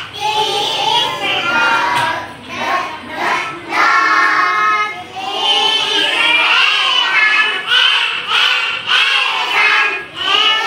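A class of young children singing the sounds of the alphabet's letters together in unison, a phonics chant in short phrases with brief breaks between them.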